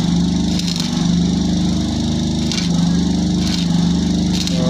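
A small engine running steadily at a constant speed, with an even, unbroken hum.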